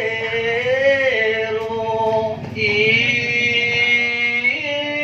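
Singing: a voice holding long, drawn-out notes that slide slowly from one pitch to the next, with a short break about halfway through.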